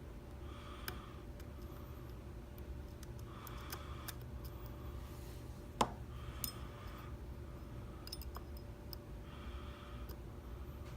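Lock picks working inside a Kale dimple lock cylinder: faint scattered metal clicks and light scrapes as the pins are probed, with one sharper click with a short ring a little past the middle.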